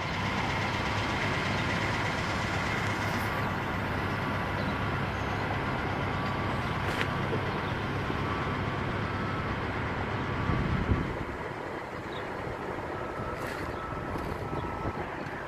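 An engine running steadily with a low hum, dropping away about eleven seconds in, with a few faint clicks.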